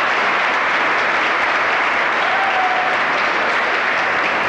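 A large seated crowd applauding: steady, dense clapping from many people.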